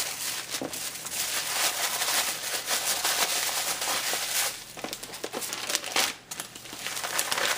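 Paper crinkling and rustling, with scattered light clicks and taps, as handmade scrapbook mini albums are handled and set aside.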